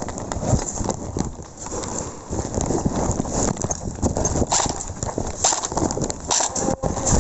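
Footsteps of a player moving over hard ground, irregular knocks with gear rattling and rustling close to the microphone, busier in the second half.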